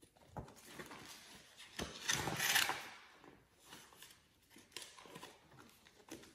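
Pages of a picture book being handled and turned: paper rustling and swishing, loudest about two seconds in, with a couple of soft knocks before it.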